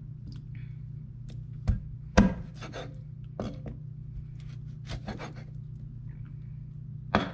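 Cleaver chopping raw meat on a thick wooden cutting board: a handful of irregular knocks, the loudest about two seconds in, over a steady low hum.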